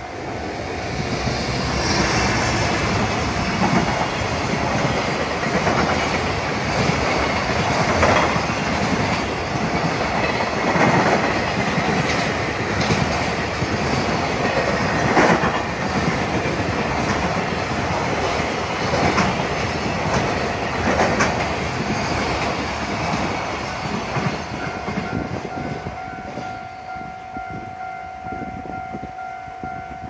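A JR Freight EF210 electric locomotive and its container wagons pass at speed, the wheels clacking over rail joints under a loud rolling rumble. A level-crossing warning signal sounds as a steady tone, and it stands out clearly as the train noise fades over the last few seconds.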